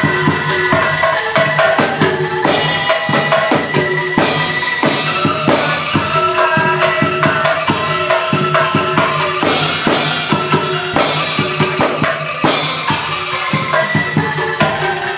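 Street angklung ensemble playing: pitched bamboo angklung notes over a fast, steady beat on improvised drums and cymbals mounted on plastic barrels and buckets, with voices singing along.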